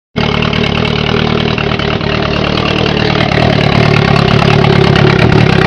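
Turbocharged Kawasaki Z1000 motorcycle engine idling steadily, heard close up at the engine. It starts a split second in and holds an even note, growing slightly louder.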